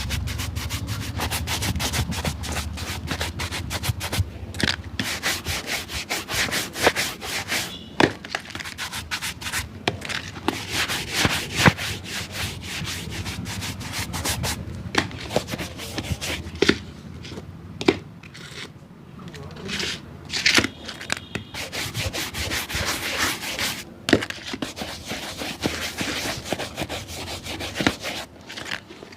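Rapid, repeated scrubbing strokes on a shoe, like sandpaper or a stiff brush worked back and forth over leather or sole, with a few short pauses.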